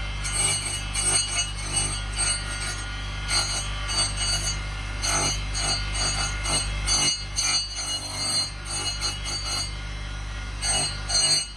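An electric motor spinning a sanding disc on a long shaft, with a steady low hum. Over it comes an uneven rasping as a carved wooden piece is pressed against the disc and worked back and forth.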